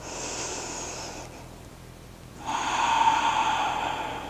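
A woman breathing audibly while holding a yoga pose: two long breaths, a softer one at the start and a louder one beginning about two and a half seconds in.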